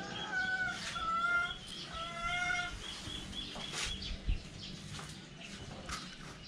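A chicken calling in a few short, drawn-out calls in the first half, with a repeating high chirping and a few sharp clicks later on.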